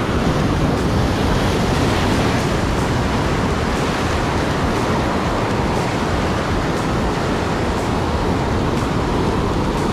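Sea surf breaking and washing over shoreline rocks, a steady loud rush of water, with wind buffeting the microphone.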